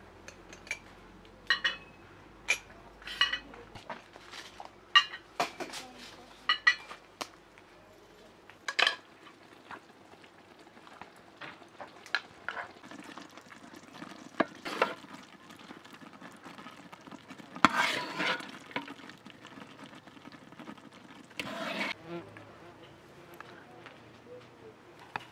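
Cups and dishes clinking sharply as they are set down on a tray, a run of separate ringing clinks. Then a ladle scoops and scrapes in a large metal pot as thick stew is dished onto a platter.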